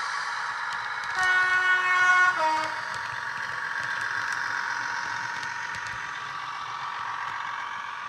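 Sound decoder in a Bachmann Class 158 model train, playing the SWD Class 158 sound file through a pair of small speakers: a steady diesel engine drone. About a second in, a two-tone horn sounds, a longer high note dropping to a short lower note.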